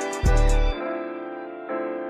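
Background instrumental music: a beat with heavy bass stops under a second in, leaving held keyboard chords, and a new chord comes in near the end.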